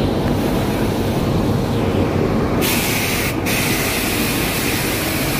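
Compressed-air spray gun spraying glaze onto a clay toilet: a sudden hiss starts about two and a half seconds in, stops briefly and starts again. Under it is a steady low machinery rumble.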